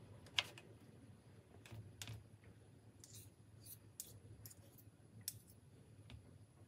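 Faint, scattered clicks and light scrapes of a metal spoon and fork knocking against each other and the rims of metal ring molds as mashed potato is scraped into them; the sharpest click comes about half a second in.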